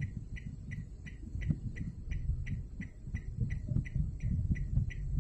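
A car's turn-signal flasher ticking steadily, about three clicks a second, over a low, uneven rumble.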